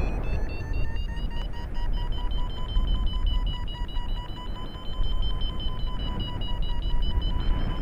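Paragliding variometer beeping fast at a steady pitch, the climb tone that signals the glider is rising in lift. Steady wind rumble on the microphone runs underneath.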